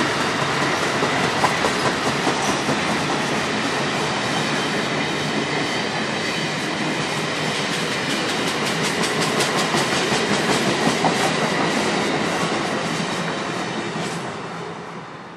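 Amtrak stainless-steel passenger cars rolling past at speed, the wheels clicking in a quick, regular beat on the rails. The sound fades away near the end as the last car goes by.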